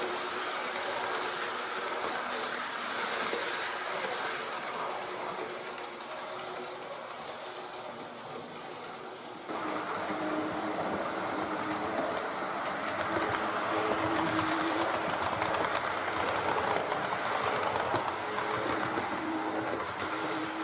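H0-scale model trains running on the layout track: a steady electric motor hum with a rolling wheel-on-rail rattle. The sound steps up suddenly and gets louder about nine and a half seconds in.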